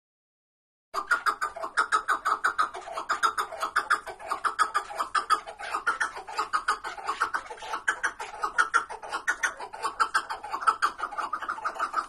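Caged chukar partridges calling: a fast, continuous run of short chuk notes, several a second, starting about a second in.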